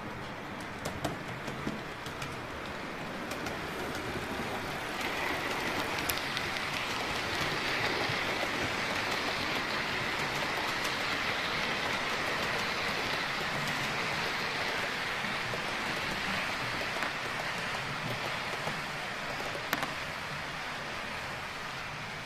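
Model train running on the layout's track and passing close by: a steady rushing rattle of wheels on rails that swells to its loudest midway and fades away, with a few faint clicks.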